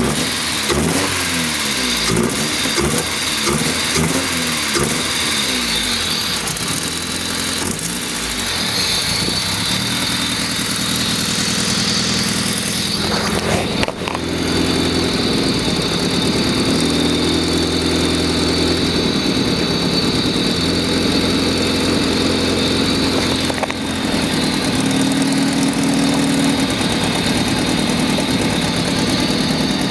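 Honda D16Y7 1.6-litre four-cylinder engine revved in repeated quick blips for the first several seconds, then running steadily with its speed stepping up and down a few times; an engine with a suspected misfire.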